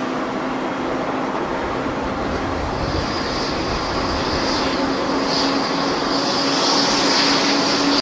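Jet engines of an airliner taxiing past at close range: a steady rumble with a low hum, and a high turbine whine that grows louder from about three seconds in.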